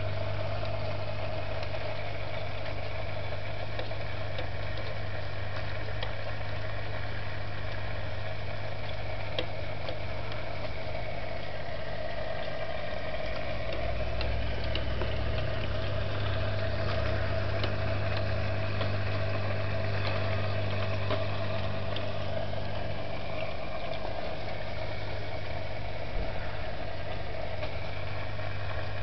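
Aquarium pump humming steadily, with a faint hiss and scattered small clicks.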